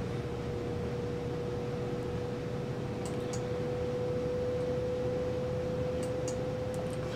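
A steady hum at one pitch over a low background rumble, with a few faint clicks about three seconds in and again near the end.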